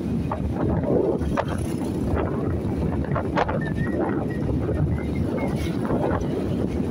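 Wind buffeting the microphone on a moving ride, a steady rumble with road and vehicle noise beneath it.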